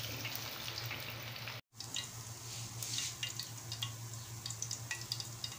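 Hot cooking oil, left from frying the fish, sizzling in a pan with a steady hiss and scattered crackles and spits. The sound cuts out for a moment about a second and a half in.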